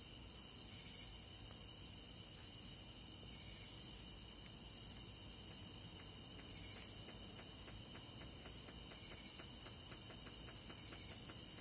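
Faint chorus of night insects, crickets and the like: steady high-pitched trilling with a higher layer that pulses about once a second. A quick, regular ticking of several beats a second joins in about four seconds in.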